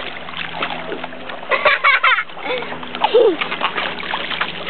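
Lake water splashing and sloshing as people wade around a floating foam board, with a cluster of louder splashes about one and a half to two seconds in.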